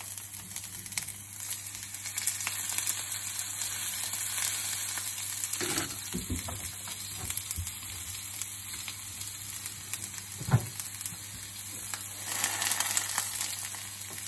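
Artichokes sizzling face-down in a little hot oil in a non-stick frying pan: a steady hiss of frying, with a few short knocks, the sharpest about ten seconds in.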